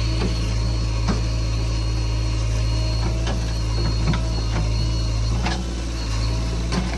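Heavy diesel earthmoving machinery, a JCB 3DX backhoe loader working, its engine running steadily, with scattered knocks and clanks from the working gear. The engine note drops briefly a little past halfway.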